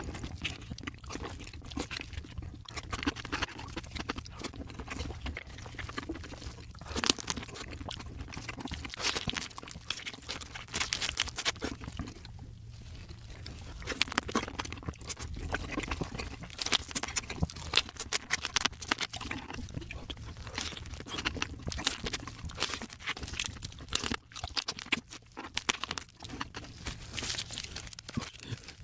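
Close-up eating of raw marinated crab: crunching and chewing through shell and flesh, with many quick, irregular cracks and wet clicks.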